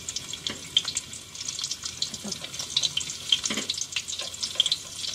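Ginger slices and chopped garlic sizzling in hot oil in a pan, a steady hiss dotted with frequent small crackling pops.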